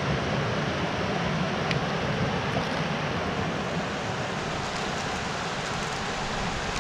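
Steady rush of a shallow, rocky river flowing over boulders and small rapids.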